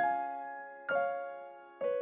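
Background piano music: slow chords struck about once a second, three in all, each left to ring and fade before the next.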